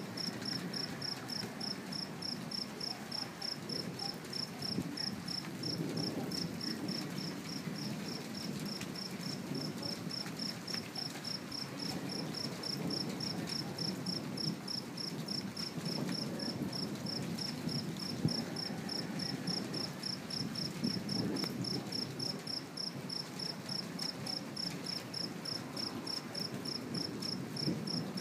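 Crickets chirping in a steady, evenly spaced pulse, over a low rumble of distant thunder that swells and fades several times.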